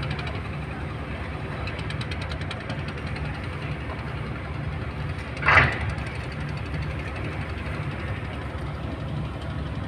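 Boat engine running at a slow, steady thudding beat. About five and a half seconds in, one brief loud sound stands out above it.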